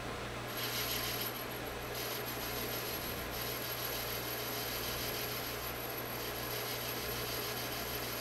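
Metal lathe boring out a cast iron bushing with a boring bar: a steady hum from the machine under a scraping hiss of the cut, which swells and eases a few times.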